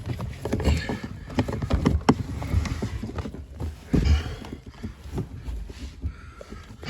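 Irregular clicks, knocks and thumps of parts and tools being handled, with heavier thumps about half a second, two seconds and four seconds in.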